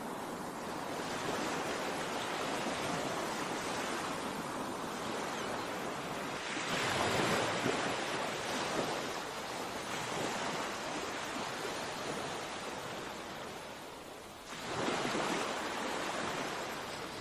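Ocean waves breaking against a sea wall and washing over the promenade: a continuous rushing surf that surges louder about seven seconds in and again with a sudden rise near fifteen seconds.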